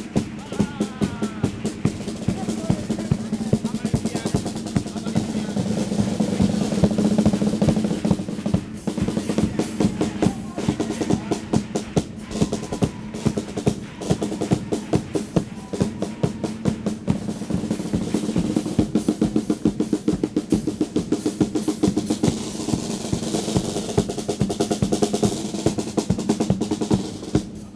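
A carnival chirigota's percussion, snare drum and bass drum, playing a quick, steady beat through an instrumental passage. A steady melody from voices or instruments sounds over it.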